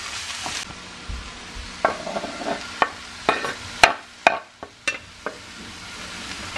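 Cabbage and mashed vegetables sizzling in a frying pan, stirred with a wooden spoon. In the middle comes a run of sharp clicks and knocks as chopped red onion is scraped off a wooden chopping board with a knife into the pan.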